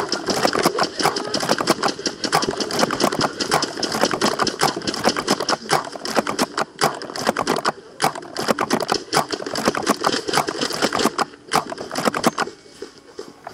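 Hurried footsteps crunching over dry ground and brush, a dense irregular run of crunches that stops about twelve and a half seconds in.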